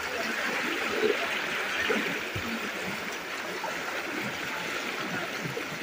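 Steady rushing of floodwater flowing along a flooded lane, churned by people wading through it while pushing an inflatable rescue boat.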